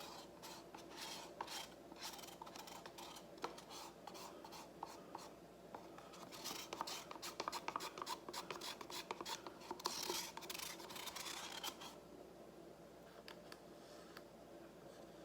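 Faint scraping and clicking as the last of the acrylic paint is scraped out of its container into a pouring cup: a run of quick scratchy strokes that gets busier in the middle and dies down near the end.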